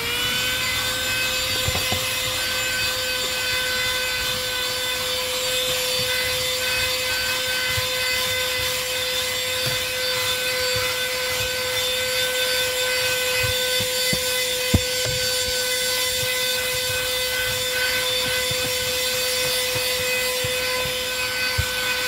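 Andeman LT-106C cordless handheld car vacuum running with a steady whine, its motor just reaching full speed as the sound begins. Its nozzle is drawn over a dirty carpet floor mat, sucking up the dirt. One sharp knock about fifteen seconds in.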